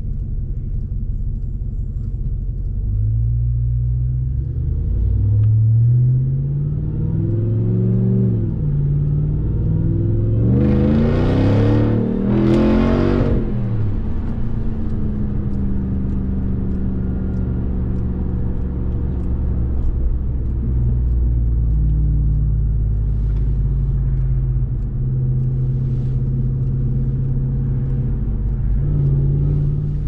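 2021 Ram 1500 TRX's supercharged 6.2-litre Hemi V8 pulling hard, its pitch climbing and dropping back several times as it shifts through the gears, then settling into a steady drone at cruise. Around the middle, two short loud rushing sounds rise over the engine.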